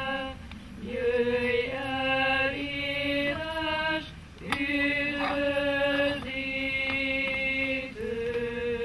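Voices singing a slow, chant-like hymn melody in long held notes, with short breaks between phrases.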